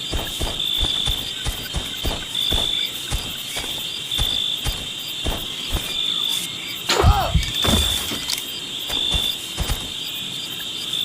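Crickets chirping steadily, with scattered soft knocks. About seven seconds in comes a sharp snap, followed by a brief falling tone and a couple of low thuds.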